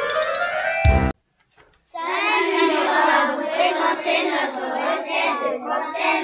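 Music stops abruptly about a second in. After a short pause, a group of children's voices sound together in unison, a class chorusing a greeting.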